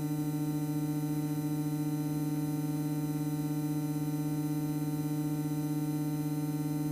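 Extra EA-200's four-cylinder engine and propeller running steadily while taxiing, a flat, buzzing drone heard inside the cockpit.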